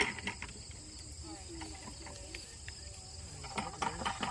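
Steady high-pitched chorus of insects, with faint voices in the background that grow into nearby talk near the end.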